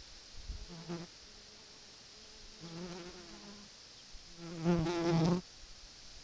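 A flying insect buzzing close to the trail camera's microphone in three passes: a short one about half a second in, a longer one with a wavering pitch around three seconds, and the loudest about four and a half seconds in.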